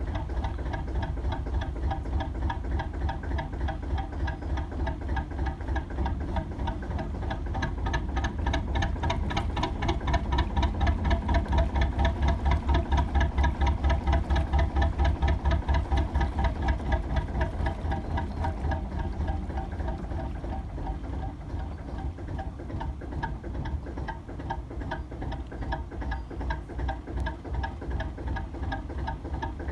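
Lister JP2 two-cylinder diesel of a narrowboat running with a steady, even beat. It grows louder about a third of the way in, then eases back down a few seconds later.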